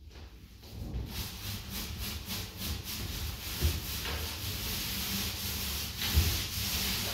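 Paint roller on an extension pole being rolled over a wall, a steady wet rubbing hiss that starts about a second in, with a couple of low knocks.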